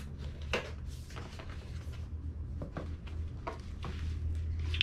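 Light taps and rustles of a cardboard product box being handled and turned over, over a steady low hum.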